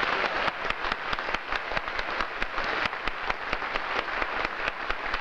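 Studio audience applauding, a dense patter of many hands clapping.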